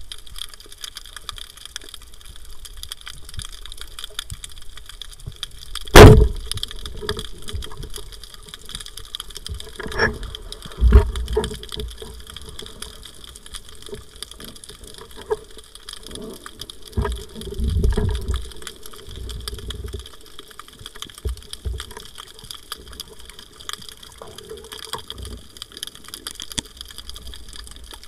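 Steady underwater hiss and fine crackle, broken about six seconds in by one loud, sharp crack as a wooden band-powered speargun fires. Scattered dull low thumps and knocks follow later.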